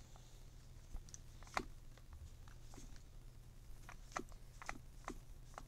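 Faint scattered clicks and taps of small objects being handled, with one sharper click about a second and a half in and a few more near the end, over a low steady hum.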